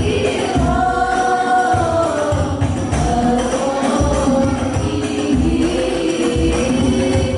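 Sholawat devotional singing by several voices together over rebana frame drums: deep drum strokes recur under a jingling, tambourine-like shimmer, heard through the group's sound system.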